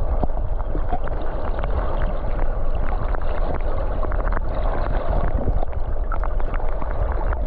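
River water rushing and gurgling around the camera, a steady loud wash with a low rumble and many small clicks and splashes.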